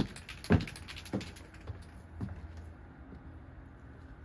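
Footsteps on wooden porch boards: a sharp knock at the start, then four heavy steps about half a second apart, fading as the walker moves away.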